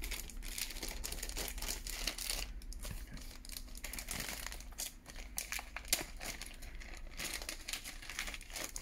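Clear plastic wrapping being pulled and peeled off a new laptop by hand, crinkling and rustling with many irregular sharp crackles.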